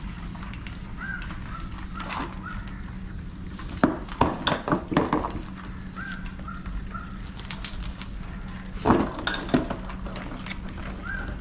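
Crab trap being shaken out, with two bouts of irregular knocking and clatter as crabs drop out of it one by one, about four seconds in and again near nine seconds. Short chirps sound between the knocks.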